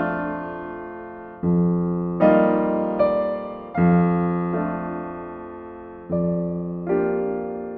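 Background music: slow, soft piano chords, each struck and left to ring and fade, a new chord every second or two.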